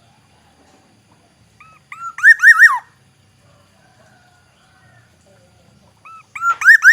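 Black-naped oriole singing: a short phrase of clear, fluty whistled notes ending in a falling slur, about two seconds in, and a second phrase of the same kind starting near the end.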